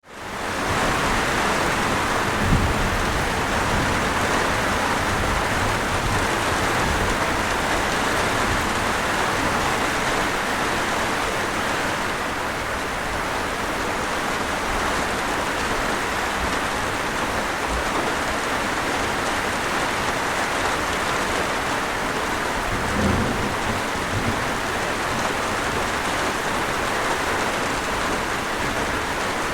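Steady rushing noise of a waterfall and falling rain, fading in over the first second, with two brief low thumps, one about two and a half seconds in and one later on.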